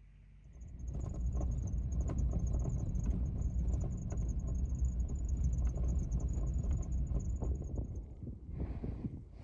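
A vehicle driving on a rough gravel track: a steady low rumble with stones crackling under the tyres and a thin high whine over it, stopping about eight seconds in. Near the end, a few crunching steps on loose rock.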